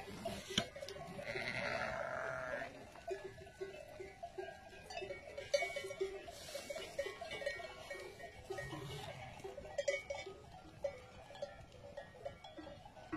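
A flock of sheep with many sheep bells clinking and ringing unevenly as the animals move and graze, and one sheep bleating once about a second in.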